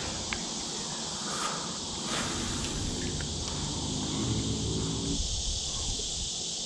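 A steady, high chorus of crickets. From about two seconds in to about five seconds, faint music plays over it from a phone's speaker.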